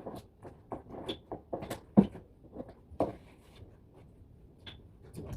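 Irregular knocks, clicks and clatter, with a sharp knock about two seconds in and another about a second later.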